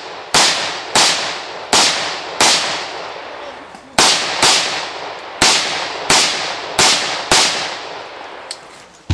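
Rapid gunshots, about ten in all, roughly two-thirds of a second apart, with a longer pause of about a second and a half after the fourth; each shot leaves a trailing echo.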